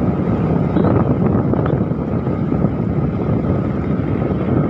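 Wind rushing over the microphone of a moving motorcycle, a steady low rumble mixed with the bike's engine and tyre noise.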